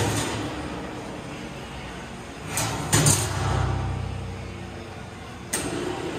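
Sharp metal clanks from the stainless steel hinged cover of a Leland 200 lb double-action mixer being handled, one at the start, a quick cluster about three seconds in and one near the end. A low mechanical hum from the mixer's drive runs underneath, swelling after the cluster and then fading.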